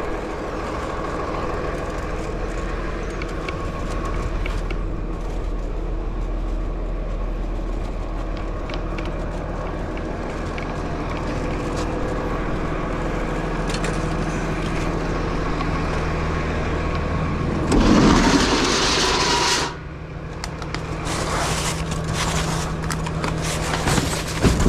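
Steady mechanical hum with several steady low tones. About eighteen seconds in, a loud scraping rush lasts about two seconds, followed by a few sharp knocks near the end.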